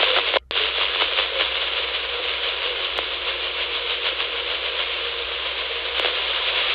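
Scanner radio receiver on the 2 m FM calling frequency with its squelch open, giving a steady hiss of FM static and no voice. The hiss drops out briefly about half a second in.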